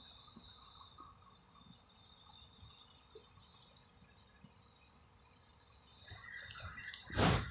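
Insects chirring steadily at a high pitch, with a short loud rustle near the end.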